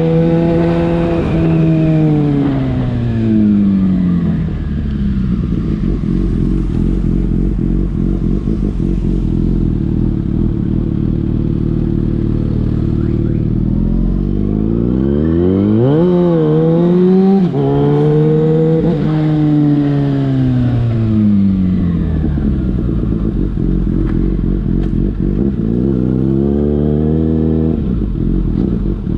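Yamaha FZ6's inline-four engine running through a LeoVince aftermarket exhaust under riding load. The revs fall away early, hold steady for a while, then climb sharply about halfway through with a quick dip at a gear change. They fall again and rise once more near the end.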